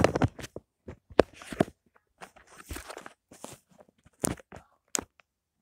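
Trophies being picked up and set down on a wooden desk: a series of irregular knocks and clunks with handling rustle between them, the strongest near the start.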